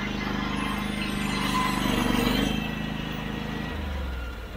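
EZ Boardwalk 40 portable band sawmill running, its engine driving the band blade through a large log. About two and a half seconds in, the cutting noise eases as the blade comes out of the end of the log, and the engine runs on.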